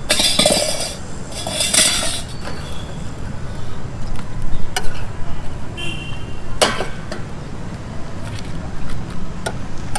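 Utensils and dishes clinking and knocking at a street food stall, with a few sharp knocks and a brief ring, over steady road-traffic noise.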